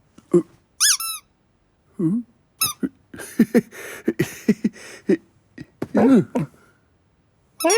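Cartoon cat vocal sounds: a high, squeaky kitten mew about a second in, then short grunting and chirping cat noises. These are mixed with quick clicks and a stretch of crackly noise in the middle.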